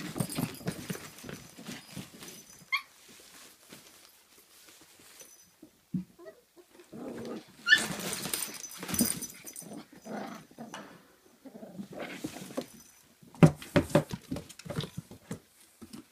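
Kooikerhondje puppies play-fighting, scuffling and scrabbling over a nylon play tunnel and a cardboard box in irregular bursts. Twice there is a short, high, rising puppy squeak.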